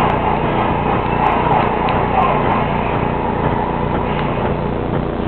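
Steady low droning hum with an even hiss, and a few faint ticks.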